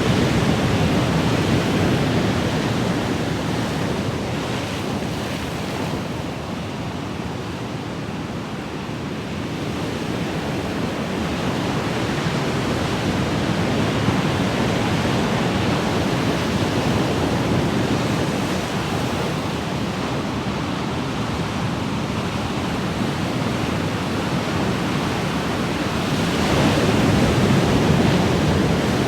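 Ocean waves washing ashore, a steady rush of surf that swells and ebbs slowly, with a stronger wave breaking near the end.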